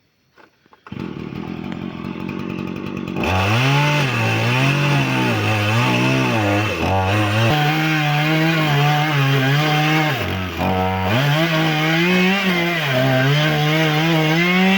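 A chainsaw's small engine comes in about a second in, then from about three seconds runs loudly at high revs, its pitch rising and falling again and again as the throttle is worked.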